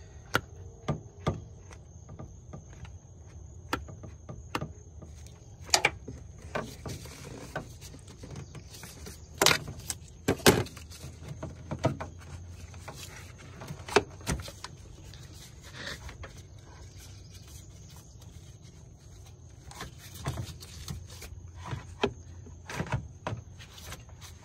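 Scattered sharp clicks and plastic knocks from hose-clamp pliers, rubber hoses and a plastic coolant reservoir being handled and fitted in a car's engine bay. A faint steady high tone sits behind them.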